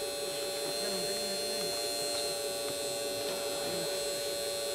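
Steady electric hum of a radio-controlled model wheel loader's small electric motors as it creeps and turns, with faint voices in the background.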